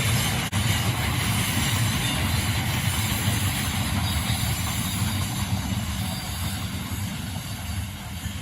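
A train passing, a steady low rumble with a wide hiss that slowly eases off.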